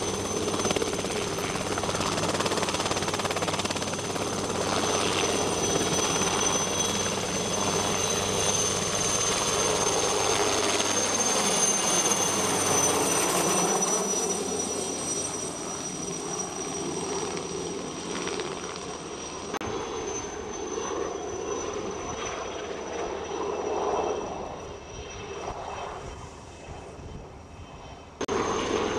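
Helicopter hovering low overhead with an underslung fertiliser bucket: dense rotor and engine noise with a high steady whine. About halfway through it flies off and the sound fades away.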